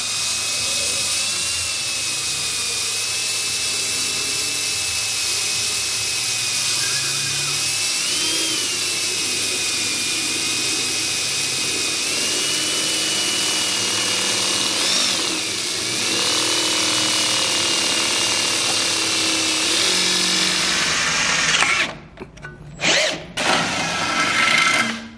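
Cordless drill running with a steady high whine as a twist bit bores a hole through sheet metal clamped in a vise, its pitch dipping and recovering a few times under load. Near the end the drill stops, followed by a few short loud bursts.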